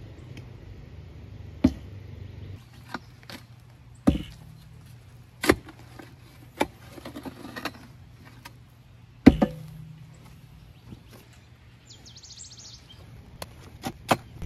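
A long-handled digging tool striking and prying in wet, stony soil around a wooden post. Sharp thuds and scrapes come one at a time, a second or more apart, the loudest about nine seconds in.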